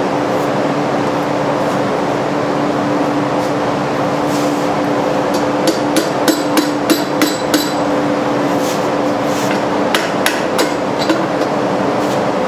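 Hand hammer striking steel clamped in a bench vise: a quick run of about seven sharp metallic blows about six seconds in, then a few scattered blows later, over a steady machine hum.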